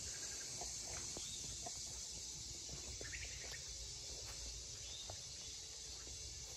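Steady high-pitched chorus of insects, with a few short bird chirps scattered through it over a low rumble.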